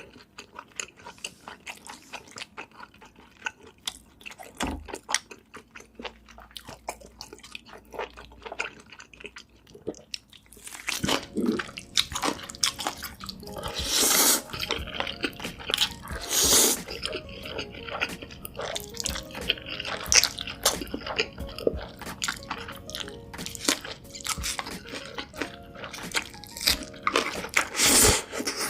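Close-miked eating: sharp bites, crunching and wet chewing of food. Background music comes in about eleven seconds in and runs under the louder, denser chewing from then on.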